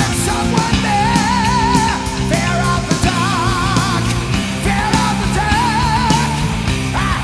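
Heavy metal music: a wavering, vibrato-laden lead melody over a driving bass and drum backing.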